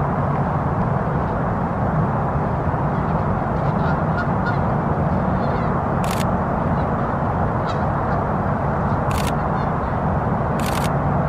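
Steady low outdoor background noise, with three sharp camera shutter clicks, one a little past halfway and two close together near the end, and a few faint, distant honks.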